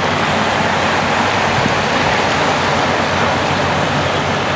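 Steady outdoor noise of wind rushing over the microphone, mixed with surf washing on a stony shore.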